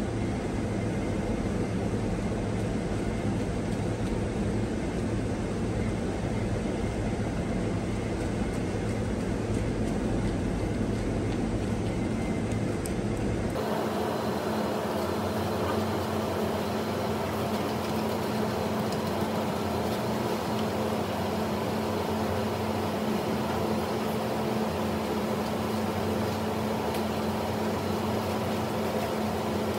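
Steady mechanical drone of kitchen equipment with a rushing noise. About a third of the way in the sound changes abruptly: the deep rumble drops away and a steadier, higher hum is left.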